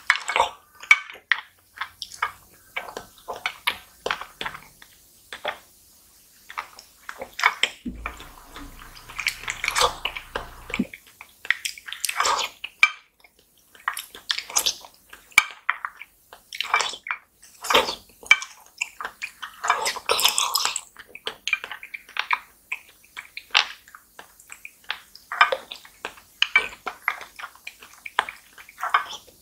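Close-up slurping and sucking of Inaco mini jelly off a plastic rice paddle, in quick wet bursts and clicks, with a few longer slurps. Now and then the paddle clinks against the glass dish.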